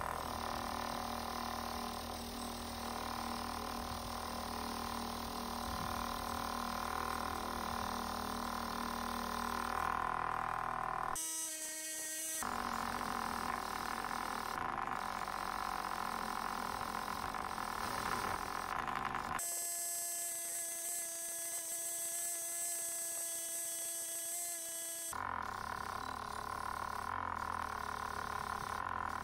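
Delta bench grinder running with a wire wheel brushing rust and old paint off a metal ice cream freezer crank handle: a steady motor whine under the rasp of the wire bristles. The sound shifts abruptly several times.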